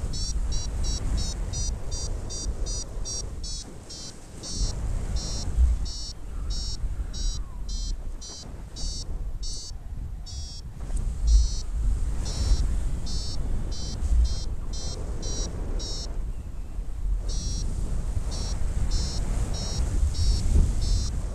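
Paragliding variometer beeping in quick high pulses, about two to three a second, the climb tone that signals rising air; the beeping stops briefly twice. Wind rushes on the microphone underneath.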